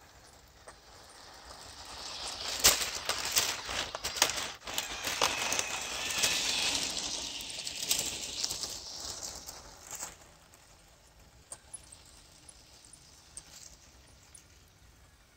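LEGO Technic tracked RC vehicle, driven by two LEGO XL motors, coming up close and moving away again over dirt and roots: plastic tracks and gears clattering and creaking, loudest in the middle and fading by about ten seconds, with a few faint clicks after. The creaking and groaning comes from its transmission straining under the motors' torque.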